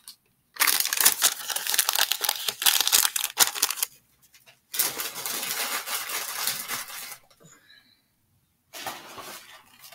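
Plastic bag rustling and crinkling as items are dug out of it, in three stretches with short pauses between, the last one quieter.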